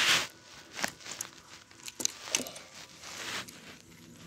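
Hands handling a plastic toy RC car at its open battery compartment: a short rush of noise at the start, then scattered small clicks, rustles and scrapes of plastic.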